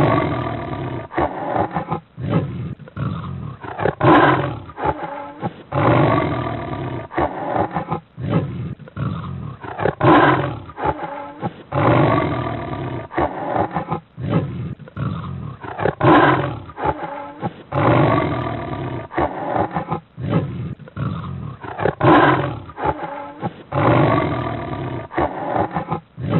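Big cat roaring over and over: pairs of loud, deep roars, each trailing into growling, repeat about every six seconds, like a looped recording. The sound is dull, with no highs.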